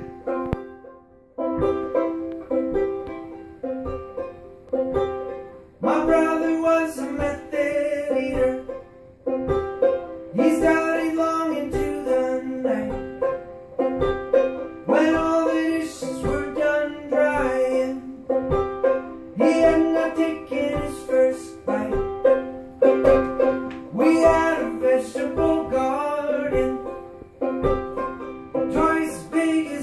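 Banjo played solo: a steady pattern of picked notes, with fuller, brighter strummed stretches every few seconds.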